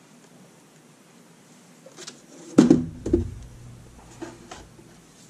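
The CrowBox housing being turned over and set down on a cutting mat: a loud knock with a deep thud about halfway through, a second knock just after, then a few light clicks of handling.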